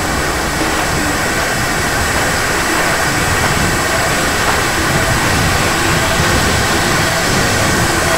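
Jet or rocket engine sound effect: a steady, even rushing noise with no clear pitch.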